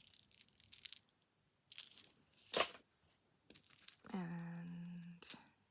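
Rustling and crinkling of a bag and small jewellery pieces being handled, in several short bursts, followed by a long drawn-out spoken 'and'.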